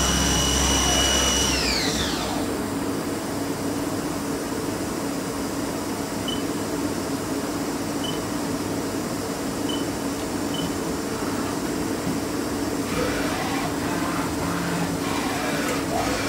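Haas ST-10 CNC lathe running empty. The spindle drive's whine falls away about two seconds in as the spindle spins down, leaving the machine's steady hum. Near the end, movement noise from the axes as the tool turret travels.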